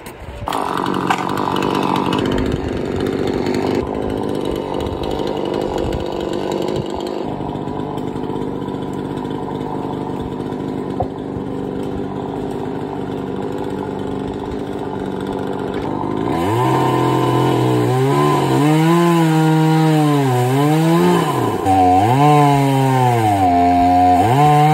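Chainsaw running at high speed as it cuts into a tree. After about sixteen seconds the engine note turns clearer and swings up and down in pitch again and again, as the revs rise and fall.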